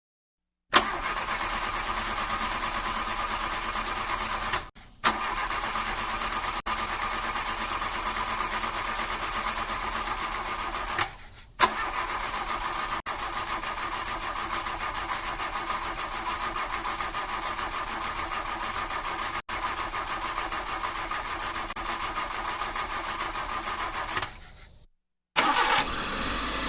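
Car engine started with a sharp catch, then running steadily at idle; it cuts out and is restarted twice, then stops, followed by a short separate clip of an engine running near the end.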